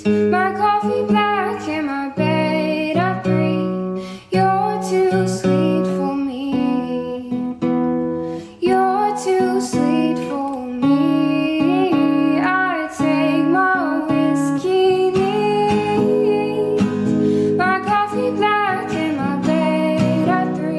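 A song: a sung melody over strummed acoustic guitar.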